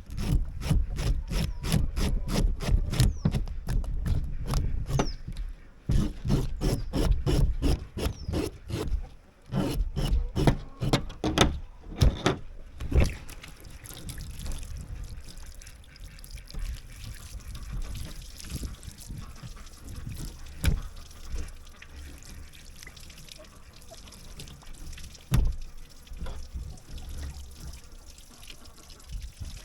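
Scales being scraped off a trumpeter fish in quick repeated strokes, about three a second, for the first dozen seconds or so. After that, water runs steadily, with a few isolated knocks.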